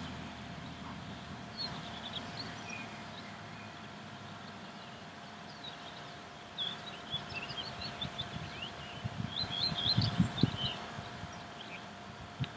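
Small birds chirping and twittering in several short bursts over a low rumble of wind on the microphone, which gusts about ten seconds in, with a faint steady hum underneath.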